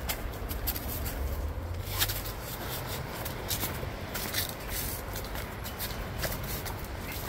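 Footsteps scuffing down concrete steps, irregular scrapes and taps over a steady low rumble.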